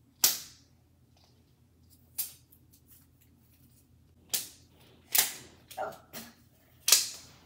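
Sharp plastic snaps and crackles as a plastic toy capsule and its wrapping are pried and peeled open by hand: about seven separate snaps a second or so apart, the last few coming closer together.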